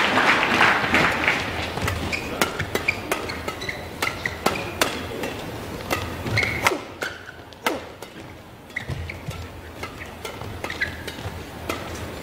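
Badminton rally: rackets striking the shuttlecock again and again in fast doubles exchanges, with short squeaks of shoes on the court. Crowd noise fades out over the first couple of seconds.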